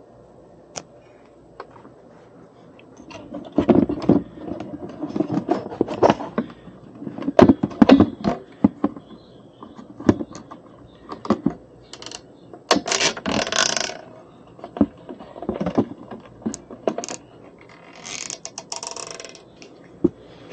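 Hands working with hardware and tools: an irregular run of clicks, knocks and scrapes, with two short hissing rustles near the middle and near the end.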